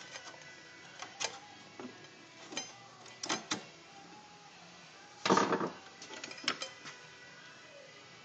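Handling noise from a pet dryer's sheet-metal back pan and its switch wiring: scattered light clicks and knocks, with a louder, longer scrape about five seconds in.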